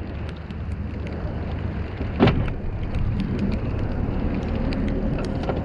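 Steady low rumble aboard a small open fishing boat at sea, with faint scattered ticks and one sharper knock about two seconds in.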